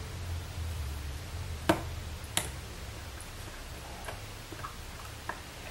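Steel teaspoon clinking against a glass beaker while stirring a thick paste of tobacco wetted with propylene glycol: two clear clicks about two seconds in, less than a second apart, then a few fainter ticks.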